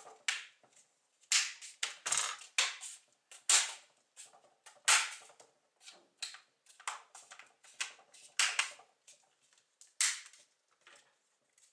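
Plastic screen bezel of a Lenovo IdeaPad 320-15IKB laptop being pressed onto the lid, its retaining clips snapping into place one after another: a quick, irregular series of sharp plastic clicks and snaps.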